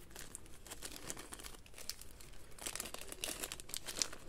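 Paper and small craft supplies being handled and rummaged through: light rustling and crinkling with soft clicks and taps, busier about two and a half seconds in.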